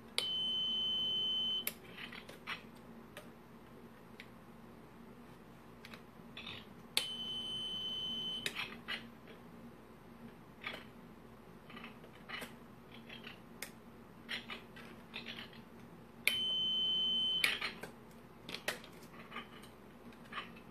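Piezo buzzer sounding a steady high-pitched beep three times, each lasting about a second and a half and all at the same pitch. Between the beeps come light clicks as the breadboard push buttons are pressed.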